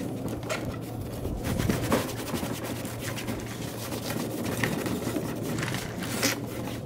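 A rag scrubbing and rubbing over the outside of a BMW E36 fuel tank, with scattered scrapes and light knocks from handling the tank, over a steady low hum.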